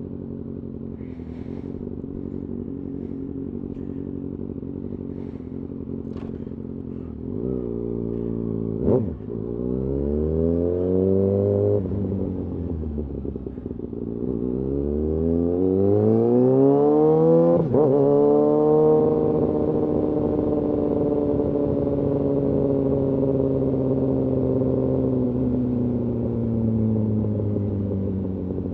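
Kawasaki ZX-6R sport bike's inline-four engine heard from the rider's seat: it runs steadily at first, then about seven seconds in accelerates hard, rising in pitch and shifting up through the gears three times, before settling into a cruise whose pitch slowly falls near the end.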